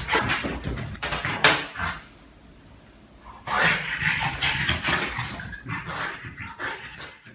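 French bulldog puppy tussling with and dragging a large plush crocodile bed across a hardwood floor: the puppy's own noises mixed with the scuffing of the plush on the floor, in irregular bursts with a quieter stretch about two seconds in.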